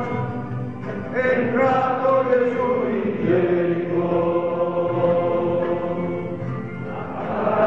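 Slow liturgical chant sung in Italian, with long held notes that step to a new pitch a couple of times.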